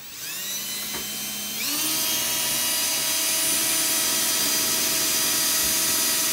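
Cordless drill with a small bit boring a pilot hole into a rear-wing upright. The motor starts slowly, then about one and a half seconds in speeds up with a rising whine and runs steadily at full speed.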